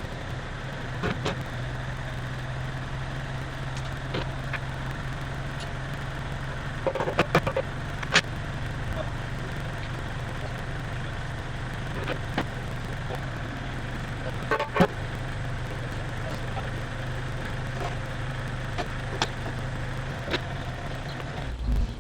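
Grumman truck's engine running at a steady idle, a constant low drone with a few sharp knocks and clunks over it; the drone stops abruptly near the end.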